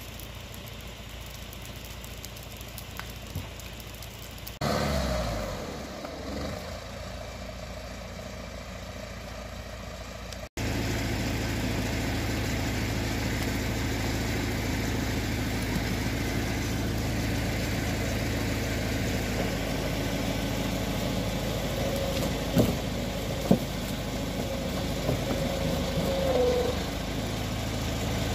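Forestry skidder's diesel engine running steadily, getting suddenly louder about ten seconds in, with two sharp knocks a little later.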